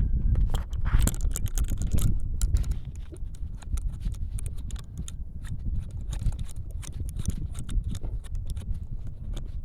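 Constant low rumble of wind on the microphone, with many irregular light clicks and knocks, thickest in the first two seconds.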